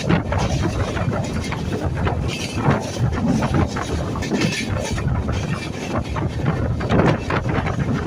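Steady running noise of a moving passenger train, with irregular clicks and knocks from the carriage throughout.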